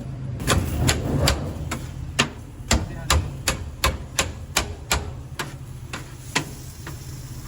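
Knife chopping on a cutting board, sharp knocks about two to three a second, over a steady low hum.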